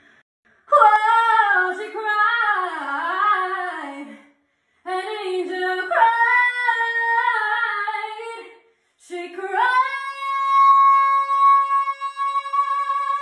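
A woman singing solo with no accompaniment, riffing in fast runs over three phrases with short breaths between them. The last phrase climbs into one long held high note. The voice carries the short echo of a small bathroom.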